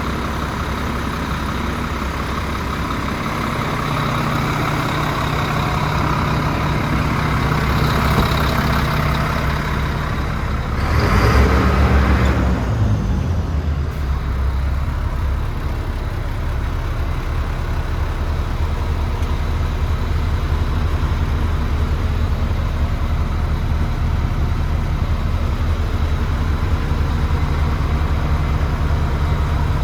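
DAF CF75 truck's diesel engine running steadily at idle, with one brief louder surge about eleven seconds in that dies away.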